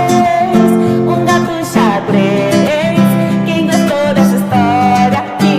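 Children's song accompaniment on acoustic guitar, strummed, with a wavering melody line over sustained low notes.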